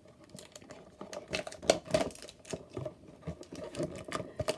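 A cardboard blaster box of 2018 Topps Chrome trading-card packs being opened and handled: irregular light clicks, taps and crinkles, starting about a second in.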